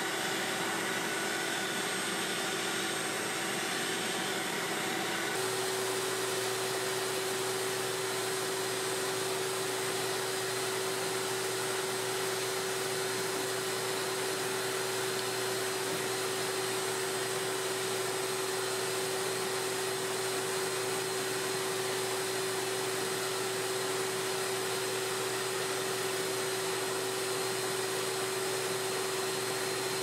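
Vacuum cleaner running steadily, a constant rushing noise with a steady whine, drawing up dust as the condenser coil is brushed. The whine shifts slightly in pitch about five seconds in.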